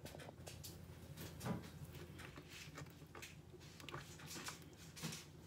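Faint rustling and scraping of fingers working flour into water in an earthenware bowl, the start of a yeast bread dough, with a couple of soft bumps.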